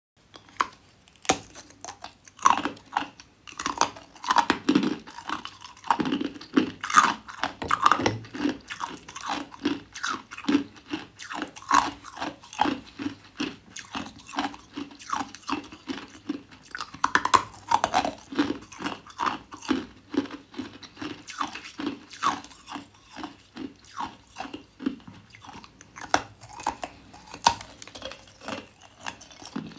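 A woman biting and chewing chunks of clear hard ice: a steady run of sharp, brittle crunches, about two a second.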